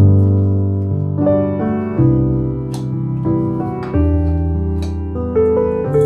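Background music: a piano playing slow, held chords that change about once a second.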